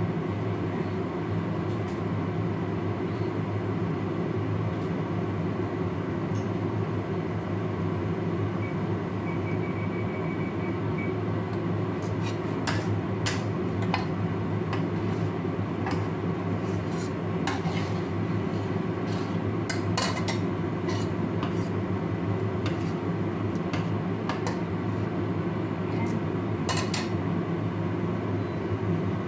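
A spatula scraping and clicking against a stainless steel frying pan while stirring, in scattered knocks through the second half, over a steady low hum.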